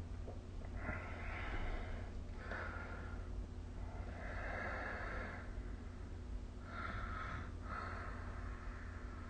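A sleeping person snoring: about five airy, rasping breaths, some close together in pairs, without a deep rumble.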